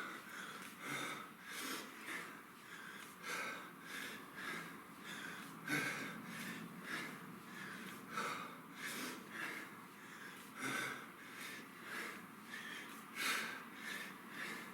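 A man breathing hard in short, forceful exhalations, roughly one a second, in rhythm with repeated kettlebell cleans.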